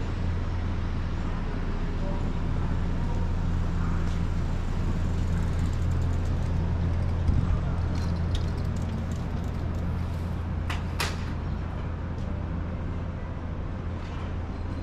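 City street ambience: a steady low rumble with a strong low hum, and a few sharp clicks about eight and eleven seconds in.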